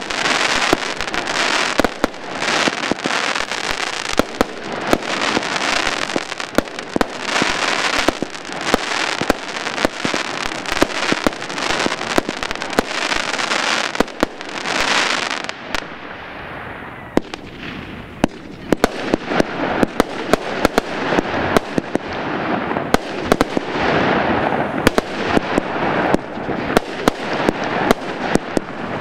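Aerial fireworks going off in rapid succession: a dense run of bangs and pops over a continuous hiss. About halfway through it thins out for a couple of seconds, then builds up again.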